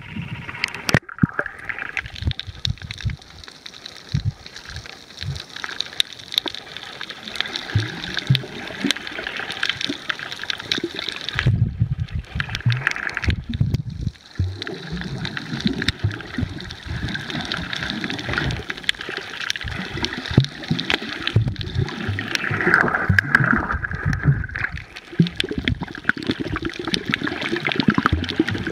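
Muffled underwater gurgling and rushing of water, heard from beneath the surface, with irregular low rumbles and a bubbly crackle throughout.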